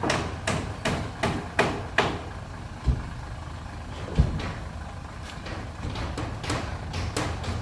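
Heavy diesel machinery engine running, with repeated metallic clanks and knocks and two heavier thuds about three and four seconds in.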